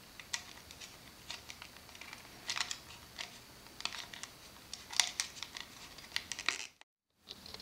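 Faint, irregular small clicks and rustles of wires being handled and pressed into a push-in wire connector on a plastic LED driver housing, with a brief total silence near the end.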